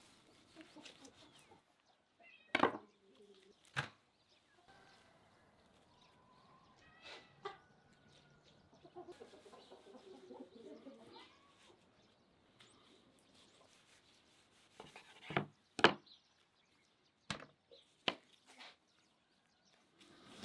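A knife cutting and trimming raw meat on a wooden cutting board: about six sharp knocks of the blade or meat hitting the board, the loudest about two thirds of the way in, with quieter slicing and handling sounds between. Faint bird calls, likely chickens, can be heard in the background.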